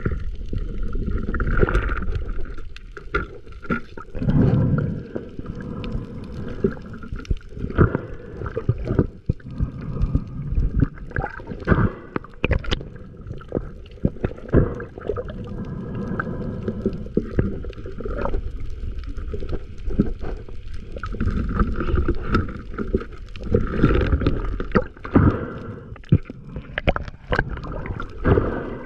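Underwater sound heard through a GoPro Hero 8's waterproof housing as a spearfisher swims over a coral reef: a steady muffled water rumble with many scattered short clicks and crackles.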